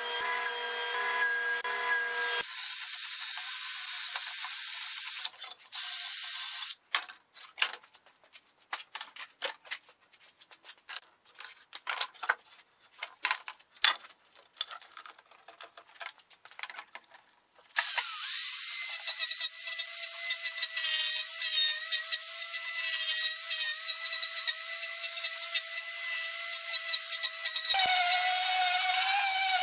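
An angle grinder running steadily against the rough edge of a purpleheart board, a continuous whine whose pitch steps up slightly near the end. Before it starts there is a stretch of scattered clicks and knocks.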